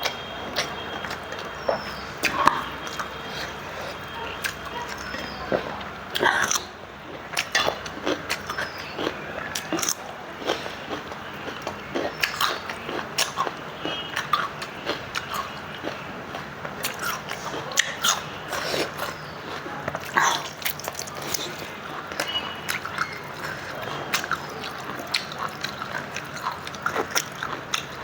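Close-up eating sounds: a person chewing a rice meal with lip smacks, in many short, wet, irregular clicks.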